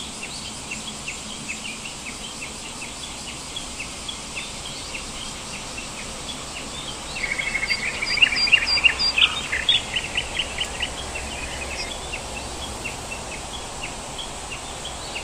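Birds chirping in the early morning, short calls repeating throughout, with a louder rapid chattering trill from about seven to ten seconds in. A faint steady high whine runs underneath, typical of insects.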